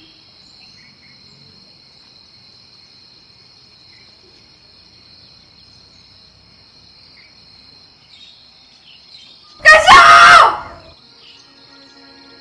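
Steady high-pitched chirring of crickets, then about ten seconds in a loud scream lasting about a second, its pitch wavering up and down.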